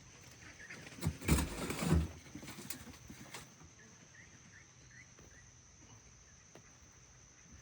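Crickets chirping steadily, with a few faint bird chirps. About a second in, a short burst of rustling with two thumps.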